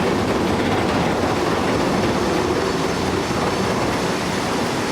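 Steady, loud rumbling and rattling of a heavy vehicle in motion.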